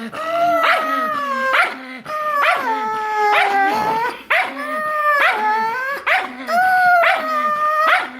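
A Pomeranian's angry, drawn-out howling yowls, over and over, each starting with a sharp bark-like yap and sliding in pitch.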